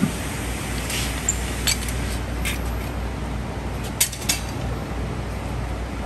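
Several light metallic clinks as a truck wheel is worked off its hub studs with a lever-type wheel dolly, over a steady low hum.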